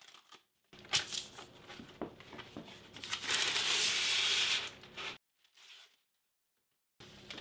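Parchment paper being pulled off its roll and torn off against the box's cutting edge, with crinkling and rustling of the sheet, densest around three to four and a half seconds in, then cutting off.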